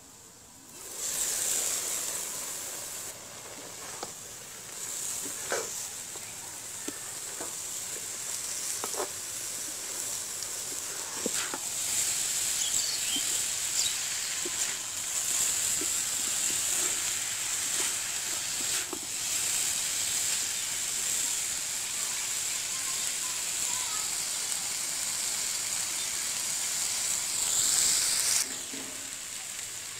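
Radish strips sizzling steadily in hot oil in an iron karahi, with a wooden spatula stirring and scraping against the pan now and then. The sizzle starts about a second in and cuts off shortly before the end.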